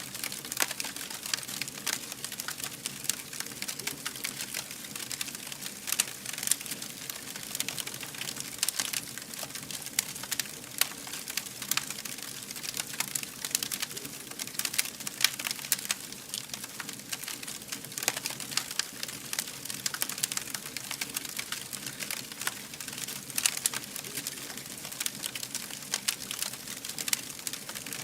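Campfire burning with dense, irregular crackles and occasional louder pops over a steady hiss.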